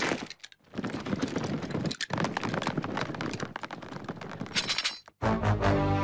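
Cartoon soundtrack of a tiny drawn army marching: a dense run of rapid tramping footfalls over music, ending about five seconds in with a loud held low note.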